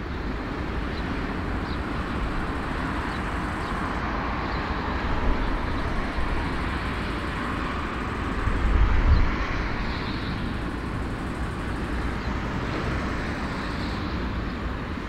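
Jet engines of a taxiing four-engined Airbus A340, a steady rumble and hiss, with wind gusting on the microphone about halfway through.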